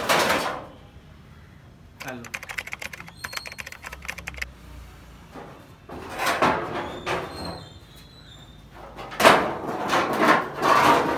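Used plastic car body parts such as bumpers and panels being shifted and handled: a quick run of clattering clicks and knocks, then scattered bumps, and louder scraping and rustling near the end.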